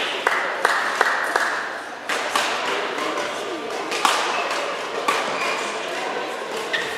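Badminton rackets striking a shuttlecock, sharp single hits one to two seconds apart, ringing in a large hall over voices. A few quick claps near the start.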